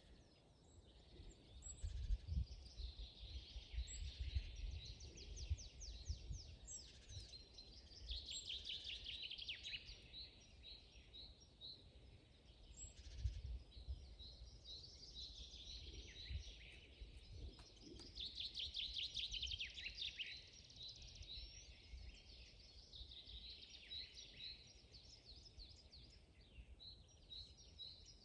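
Several songbirds singing at once in a forest, a mix of fast repeated trills and chirps, over a faint low rumble.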